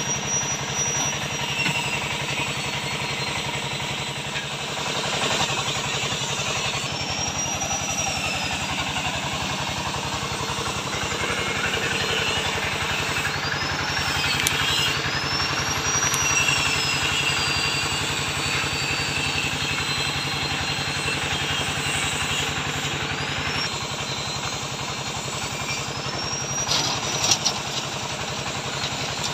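Small engine of a homemade concrete mixer running steadily, with a high rising-and-falling whistle recurring every several seconds. Near the end come a few knocks as wet concrete is tipped from a bucket into a steel mould.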